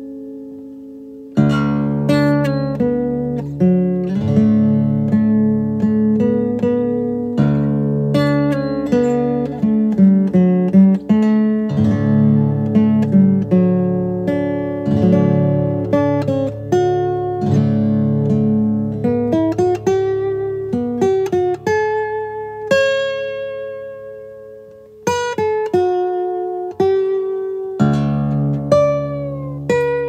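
Relaxing instrumental background music: a melody of plucked notes that ring and fade, over held low notes, with a brief pause a little over a second in and another about 25 seconds in.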